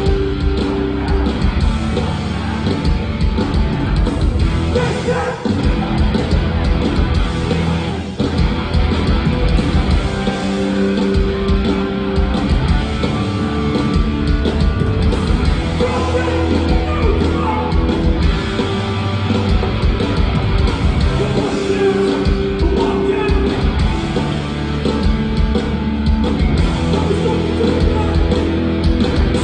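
Hardcore punk band playing live and loud: distorted electric guitars, bass and pounding drums, with shouted vocals over the top.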